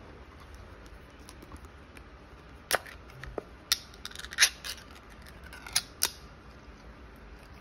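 Ring-pull lid of a small metal can of wet dog food being opened: a series of sharp metallic clicks and snaps as the tab is lifted and the lid cracks open and peels away, the loudest about four and a half seconds in.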